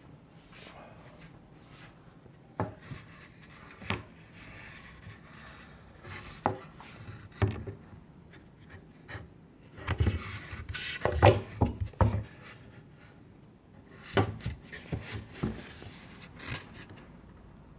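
A plywood drilling jig being handled and fitted against a cabinet door: scattered wooden knocks and scraping, busiest around the middle and again near the end.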